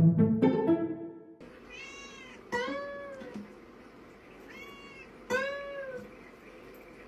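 Domestic cat meowing four times, each meow rising and falling in pitch, the second and fourth the loudest, over soft acoustic guitar playing. Background music plays for the first second or so, then cuts off.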